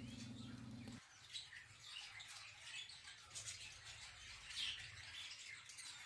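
Faint, scattered chirps and short calls from caged finches and canaries. A low steady hum stops about a second in.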